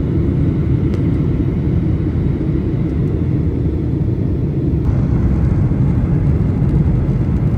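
Steady, loud rumble of a jet airliner's engines and airflow heard inside the cabin from a window seat, with the plane descending toward the airport.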